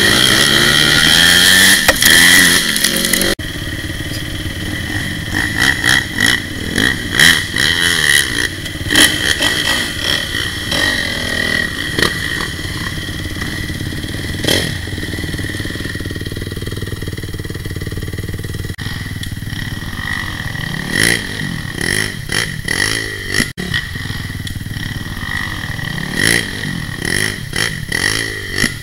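Dirt bike engines: a bike revving hard for the first few seconds, then dropping back suddenly, after which engines run at low revs and rise in short bursts of throttle, with scattered knocks and rattles.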